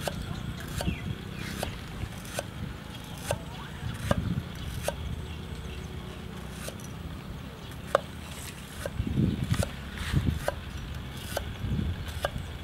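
Cleaver knocking on a round wooden chopping block as garlic cloves are cut, about one to two sharp knocks a second at an uneven pace, over a steady low rumble.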